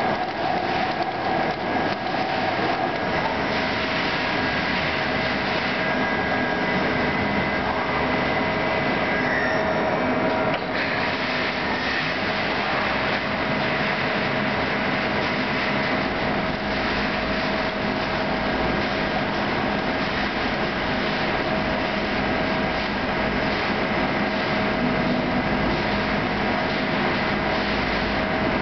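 CNC lathe turning a nut blank under flood coolant: steady machining noise with a steady whine over the hiss of coolant and cutting. The whine changes pitch about 11 seconds in, and a low rumble comes in around 16 seconds.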